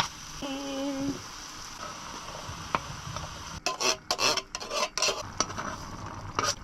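Fish green curry sizzling in a pot while a utensil stirs it, with a run of sharp scrapes and knocks against the pot about halfway through.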